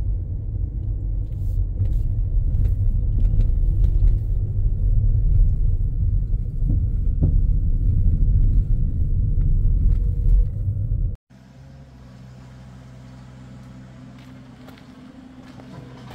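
Car driving: a steady low rumble of engine and road noise. About eleven seconds in it cuts off abruptly, and a much quieter steady low hum follows.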